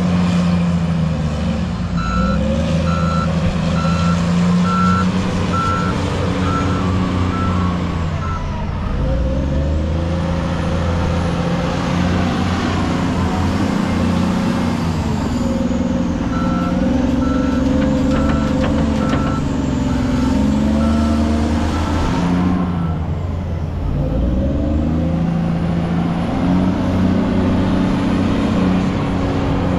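Hitachi ZW310 wheel loader's diesel engine running under load, its pitch dipping and climbing again about nine and twenty-three seconds in as the machine changes direction. Its reversing alarm beeps steadily in two runs, starting about two seconds in and again about sixteen seconds in.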